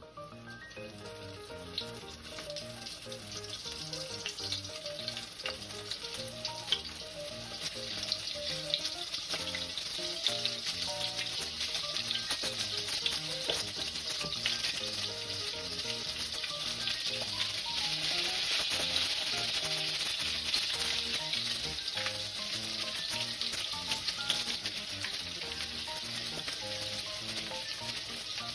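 Flour-dredged chicken pieces deep-frying in hot oil in a stainless steel skillet: a dense crackling sizzle that grows gradually louder over the first two-thirds and then holds.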